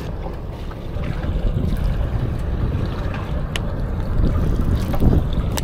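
Wind rumbling across the microphone on a small boat at sea, with water lapping at the hull. Two or three brief sharp clicks stand out in the second half.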